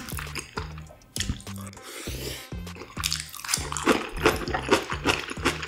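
Close-up eating sounds of jajangmyeon noodles in black bean sauce: slurping and chewing with many short, sharp mouth clicks. Background music with a repeating bass line runs underneath.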